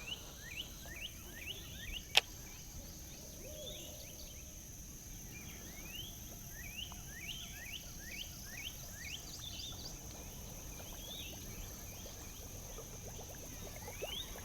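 A bird singing runs of short rising whistled notes, about three a second, over a steady high-pitched insect drone, with one sharp click about two seconds in.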